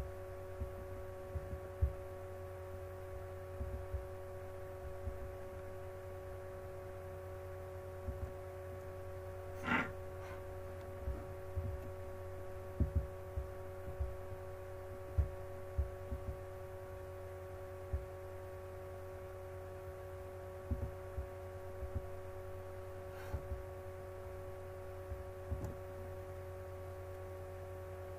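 Steady electrical hum made of several fixed pitches over a low drone, with scattered soft low thumps and one sharper click or knock about ten seconds in.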